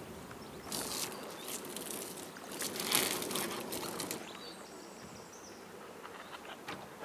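Freshly cut green bulrush stems rustling and crackling as hands bend and work them, in a run of short bursts, loudest about three seconds in. After about four seconds it gives way to quieter outdoor ambience by the water with a few faint high chirps.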